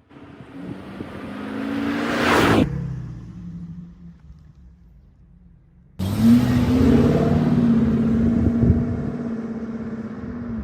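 Car engine accelerating, rising in pitch and swelling until it cuts off abruptly, then after a quieter stretch a second, louder spell of the engine running on a steady note that slowly eases off.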